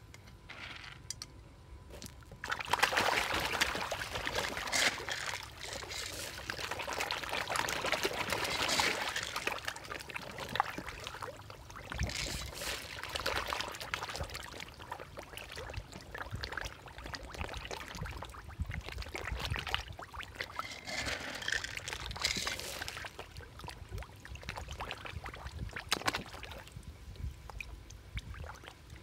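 Water splashing and churning as a crowd of fish feed at the surface, snatching floating feed pellets. The splashing starts about two and a half seconds in and comes in uneven surges.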